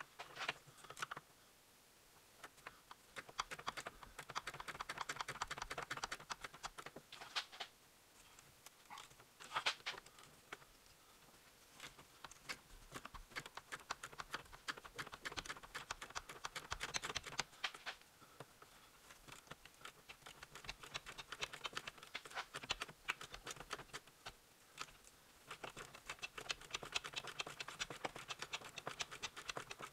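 Hand ratchet clicking in long rapid runs as a 10 mm bolt on a power steering line bracket is backed out, with a few single knocks of the tool on metal between the runs.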